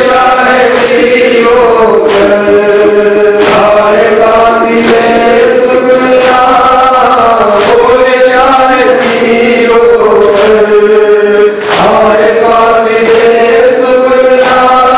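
Men chanting a Muharram lament (nauha) through a microphone and loudspeakers, in long held notes, with a regular sharp beat about every second and a half.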